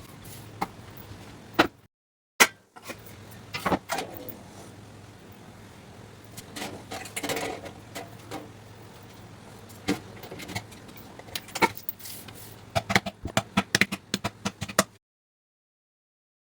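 Irregular knocks and clicks of objects being handled, over a steady low hum. The sound cuts out briefly about two seconds in and again near the end.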